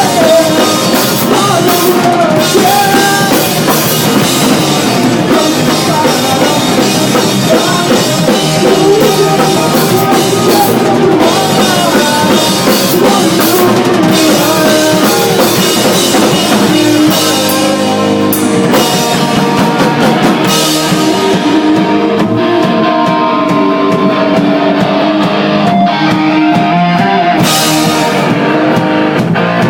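Punk band playing live: loud distorted electric guitars over a rock drum kit. About twenty seconds in the cymbals drop away for several seconds, then crash back in near the end.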